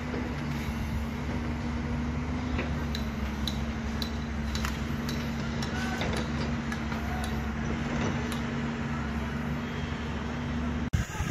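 Steady drone of a machine engine running, with scattered light metallic clicks and taps from steel rebar being handled.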